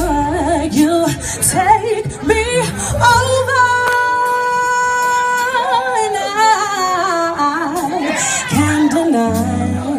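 Woman singing live with a small band: quick bending vocal runs, then a long held note about three seconds in, over bass, keyboard and drums.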